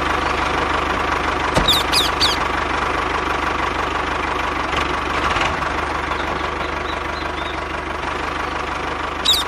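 Diesel tractor engine idling steadily with a rapid, even knock. Short high chirps come briefly about two seconds in and again near the end.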